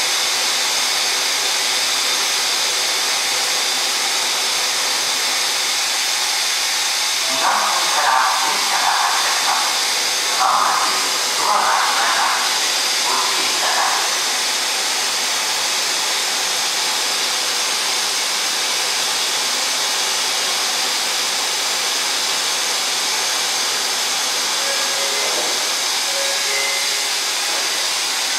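Steady loud rushing noise of the station's air blower, which the uploader finds very noisy. About a quarter of the way in a voice is heard for several seconds.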